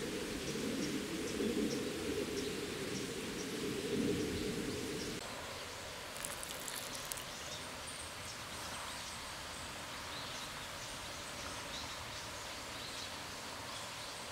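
Outdoor ambience: a low rushing noise that cuts off abruptly about five seconds in, followed by a quieter background with faint scattered high chirps and a brief patter of clicks about six seconds in.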